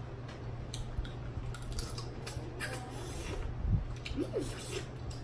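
Close eating sounds of a seafood boil eaten by hand: wet squishing of sauce-covered crab and shrimp, small clicks and cracks of shell being picked apart, and finger-licking. A short murmur about four seconds in.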